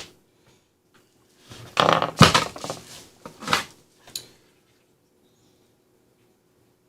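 Small hard parts and tools handled on a workbench: a short clatter with a sharp knock about two seconds in, then two lighter clicks.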